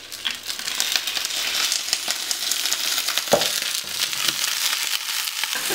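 Halved red chicory (endive) frying in hot olive oil in a pan, a steady crackling sizzle that grows louder over the first second.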